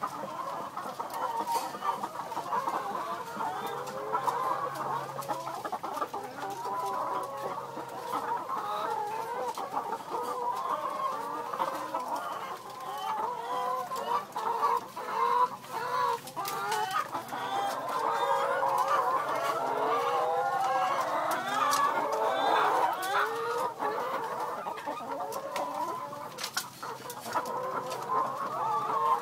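A flock of chickens clucking, many calls overlapping, growing somewhat louder past the middle.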